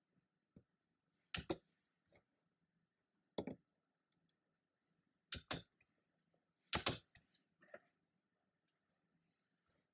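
Scattered sharp clicks and taps from desk work, several in close pairs, with pauses of a second or two between them.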